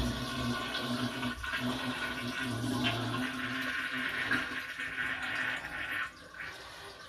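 Toilet flushing with its water supply shut off, the handle held down so the tank empties into the bowl without refilling. The rush of water dies away about six seconds in.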